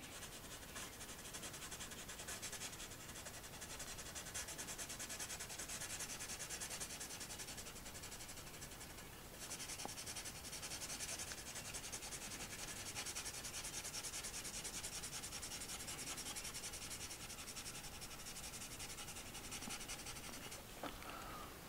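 Graphite pencil held on its side, rubbing across drawing paper in continuous shading strokes. It makes a faint, steady scratchy hiss with a brief pause about nine seconds in.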